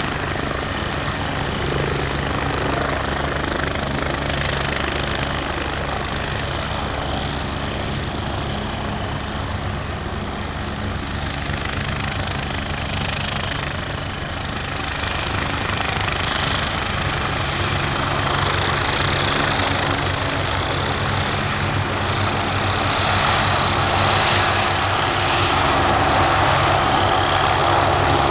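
Turbine helicopter running: a steady low rotor drone under a high turbine whine. In the last few seconds the whine rises in pitch and the sound grows louder.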